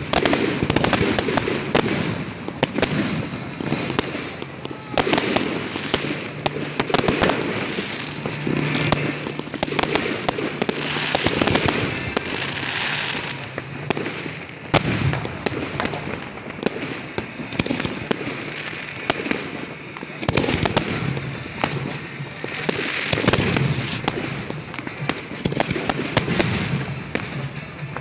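Fireworks going off without a break: many irregular sharp bangs and crackles from rockets and aerial bursts, one after another.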